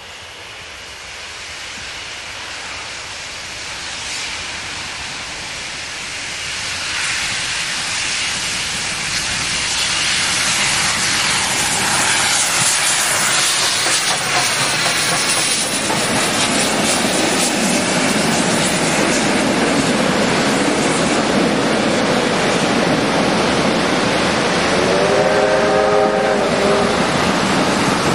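Victorian Railways R-class 4-6-4 Hudson steam locomotive R761 approaching with a passenger train and passing close by, its steam exhaust and hiss growing steadily louder and then staying loud as the carriages roll past. A brief whistle sounds near the end.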